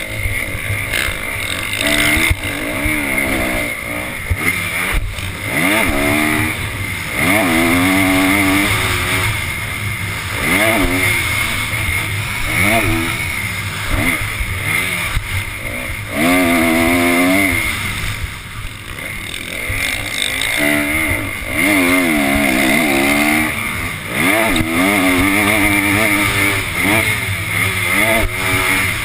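Motocross dirt bike engine revving hard under racing load, its pitch climbing and falling back over and over with throttle and gear changes, over steady wind rush.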